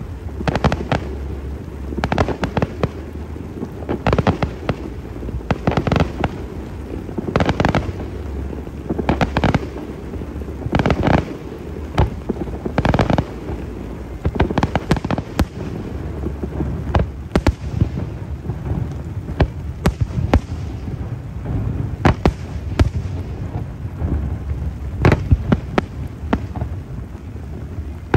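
Aerial fireworks going off: a long run of sharp bangs at an uneven pace, some in quick clusters, over a steady low rumble.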